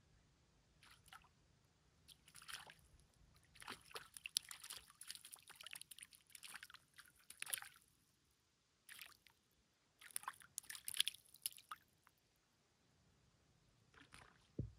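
A small hooked fish splashing and thrashing at the water's surface as it is played in on a float rod, in a run of short splashy bursts. Near the end it is lifted out, with a brief low thump.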